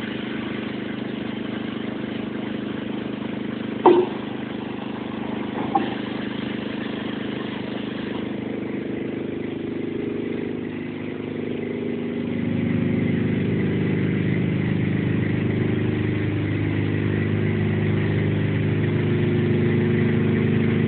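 An industrial machine running with a steady hum, with a sharp clank about four seconds in and a lighter one about two seconds later. About twelve seconds in it grows louder and fuller, as if a further drive or stage has come on.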